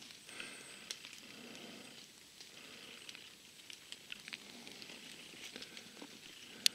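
Faint scattered crackles and small ticks, with one sharper click near the end.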